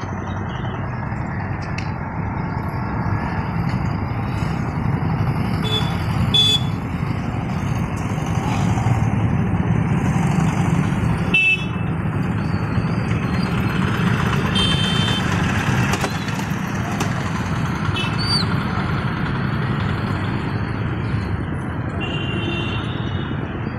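Street traffic of motorcycles, scooters and auto-rickshaws running as they cross a rail level crossing, a steady engine din with short horn toots several times.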